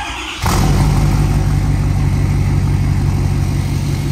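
Ford 6.7 Powerstroke V8 turbodiesel in an F-350 starting from cold through its 5-inch exhaust: a brief crank, then it catches about half a second in and settles into a steady idle.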